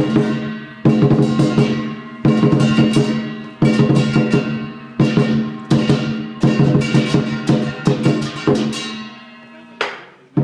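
Lion dance percussion: a large drum beaten with crashing cymbals and ringing gong strokes, heavy accents about every second and a half with quicker beats between. The playing dies away near the end, then starts up again.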